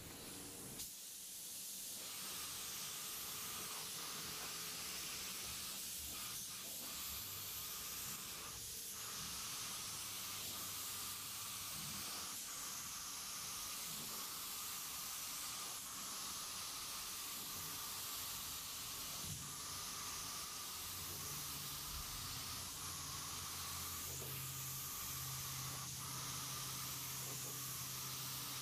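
Gravity-feed compressed-air paint spray gun hissing steadily as it sprays paint onto a truck panel, starting about a second in.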